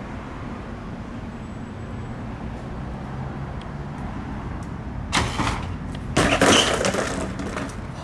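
A BMX bike and rider hitting asphalt: a sharp impact about five seconds in, then about a second later a louder crash as rider and bike slam down and the bike clatters on the pavement before going still.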